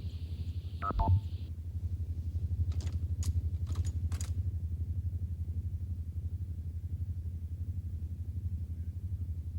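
Low, rapidly pulsing electronic hum of a science-fiction time-machine sound effect. A short falling tone comes about a second in, and a few brief high chirps a couple of seconds later.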